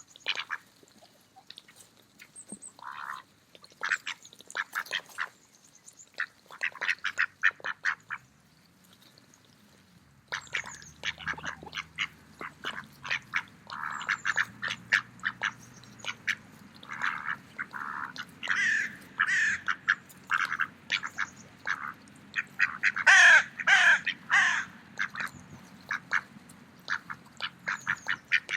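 Mallard ducks feeding, with rapid sharp clicks of bills snapping at food and repeated quacks; the loudest quacks come in runs in the second half.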